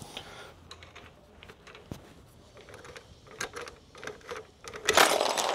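KTM EXC-F front fork being pumped by hand to bleed air from fresh fork oil: faint, scattered clicks and oil sloshing in the fork tube. Near the end comes a sudden loud clatter as tools are knocked flying.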